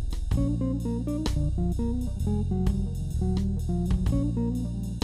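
Instrumental music: a melody of short plucked guitar notes over a steady bass line.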